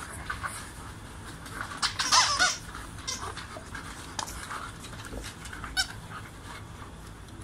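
Old English Sheepdogs at play over a toy. One gives a short, loud bark about two seconds in, followed by a few softer yips and sharp clicks.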